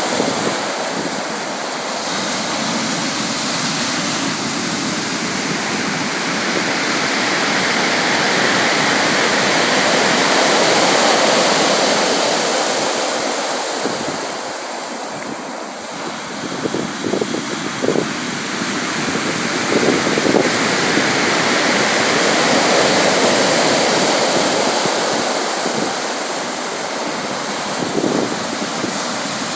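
Sea waves and surf: a continuous rushing wash that slowly swells and eases over several seconds, with a few brief sharper spikes about two-thirds of the way through and again near the end.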